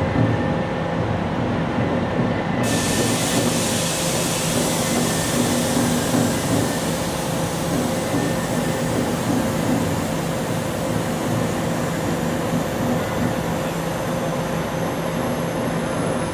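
A 305 series electric multiple unit pulling slowly into the platform, running with a steady electric hum over rolling wheel noise. A high hiss sets in suddenly about two and a half seconds in.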